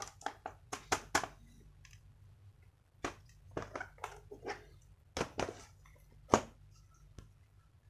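Irregular plastic clicks and knocks from handling a laptop's case and parts during reassembly, in scattered groups with the sharpest knock near the end.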